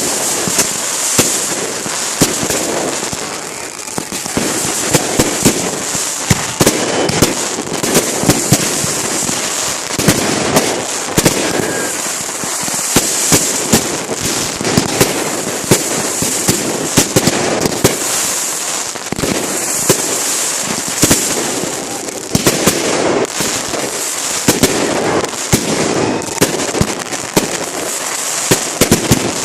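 Fireworks going off in rapid succession: sharp bangs and pops come close together over a continuous crackling hiss.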